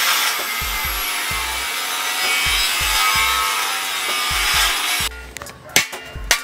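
Angle grinder with a cutting wheel slicing through the rusty steel of a tractor plough disc: a steady, loud grinding hiss. About five seconds in it stops abruptly, and a hammer knocks on the steel plate a couple of times near the end.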